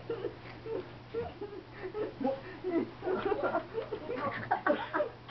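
Indistinct voices in short snatches, over a steady low hum.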